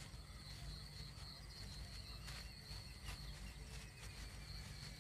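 Faint insect ambience: a steady high-pitched whine with a few soft ticks over a low rumble.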